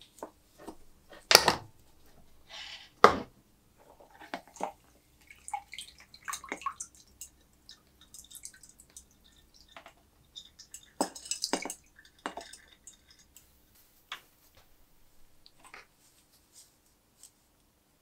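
Handling of a nickel electroplating tank: metal alligator clips and wires clicking and knocking against the plastic tub and copper bar, with two sharp knocks in the first few seconds. Later, liquid drips from a rod lifted out of the plating solution, with a cluster of small splashes and clicks.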